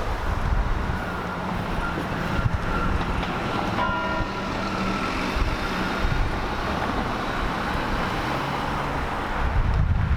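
Cathedral church bell tolling in mourning: one strike about four seconds in that rings on and fades slowly. Steady traffic and wind rumble lies underneath.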